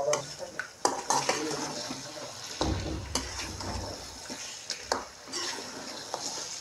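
A steel spoon scraping and clinking against a metal kadhai while chicken pieces are stirred and browned (bhuna) in yogurt-spice masala over a high flame, with a light sizzle underneath. There are irregular clinks throughout and a brief low rumble about two and a half seconds in.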